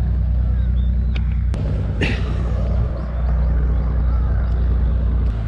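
A motor running steadily with a low, even hum, with a few light clicks over it.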